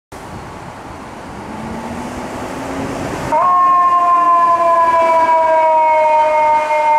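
Seagrave Marauder II fire engine giving a long blast of its air horn. The blast comes in suddenly and loudly about three seconds in as two strong tones that sag slowly in pitch. Before it, a quieter low tone rises slowly under the street noise.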